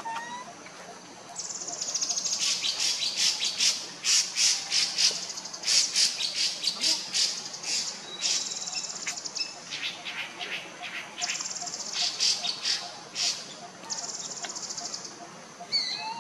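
High-pitched chirping and buzzing trills from birds or insects, in bursts starting about a second and a half in: rapid runs of sharp chirps several a second, broken by fine, even trills. A few short rising whistles sound near the start and the end.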